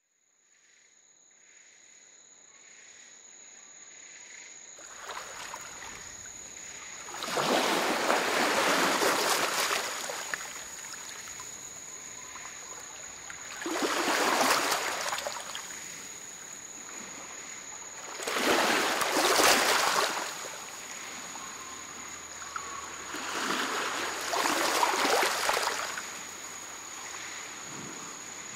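Sea water rushing and splashing along a sailing yacht's hull under way, in swells that rise and fall about every five seconds over a steady wash, fading in from silence at the start.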